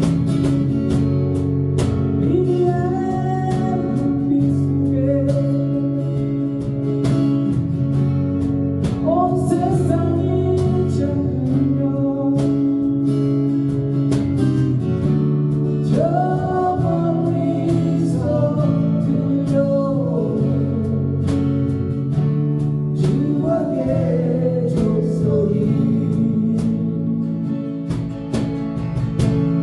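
A song sung with guitar accompaniment: a voice carries the melody over sustained chords and a steady beat.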